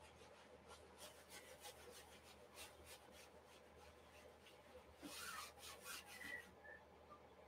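Faint, repeated scrubbing strokes of paint being rubbed onto a stretched canvas by hand, with a louder flurry about five seconds in that stops about a second and a half later.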